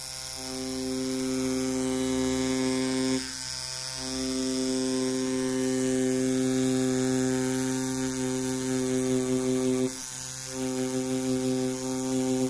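Rotary tattoo machine running with a steady electric buzz while lining on skin, cutting out briefly twice, about three seconds in and again about ten seconds in.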